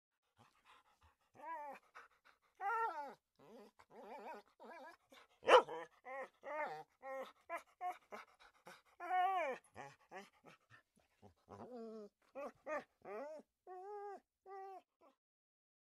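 A dog whining and whimpering in a long run of short, arching cries, with a sharp click about halfway through.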